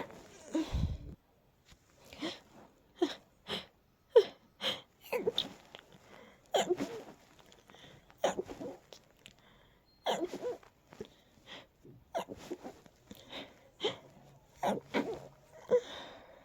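A person's stifled sneezing fit: a long run of short, held-back sneezes coming about once a second, the sharpest one about four seconds in.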